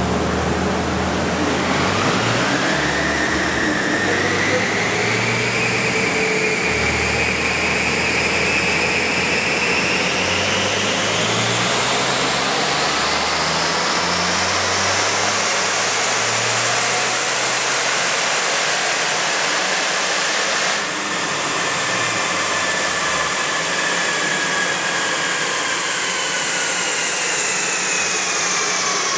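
Smart ForTwo 451's three-cylinder engine pulling hard on a rolling-road dyno in a power run, a whine rising steadily in pitch for about twenty seconds, then easing off and slowly falling as the run ends. A large cooling fan's steady rush sits under it throughout.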